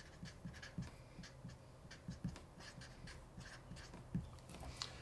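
Marker pen writing on paper: a run of short, faint, irregular strokes as words are lettered by hand.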